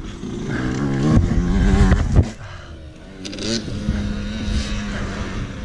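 Dirt bike engine revving, its pitch climbing for about two seconds, then settling into a steadier engine note with a few knocks.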